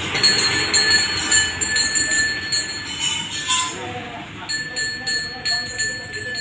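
Bells jingling in quick, uneven shakes, with a steady high tone that breaks off midway and comes back.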